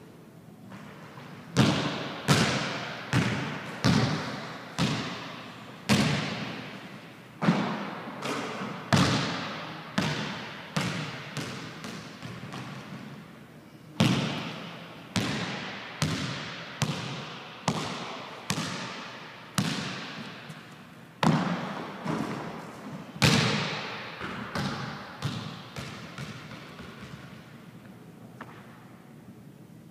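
A basketball bouncing and being dribbled on a hardwood gym floor, with irregularly spaced thuds. Each bounce rings on in the echo of the large hard-walled gym, and the bounces grow fainter near the end.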